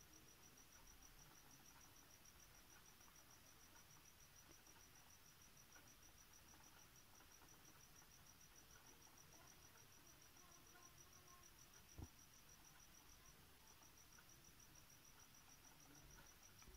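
Near silence with a faint, steady, high-pitched pulsing trill like a cricket's, which breaks off briefly about thirteen seconds in. A single soft tap comes about twelve seconds in.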